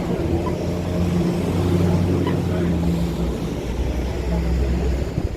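City street traffic dominated by a vehicle engine running with a steady low hum, with people talking.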